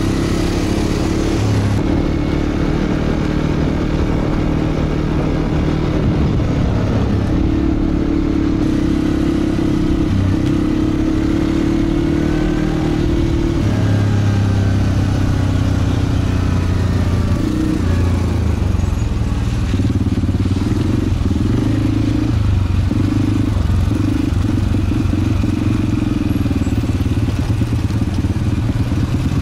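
Quad bike (ATV) engine running under way, its steady drone stepping up and down in pitch with the throttle every few seconds.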